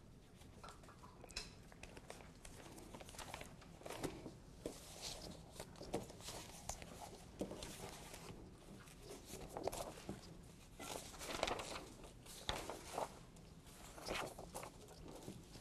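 Faint, scattered rustles and light knocks from people shifting and handling things in a quiet lecture room.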